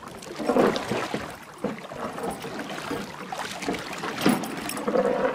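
Sea water splashing and slapping beside a boat's hull, in irregular bursts.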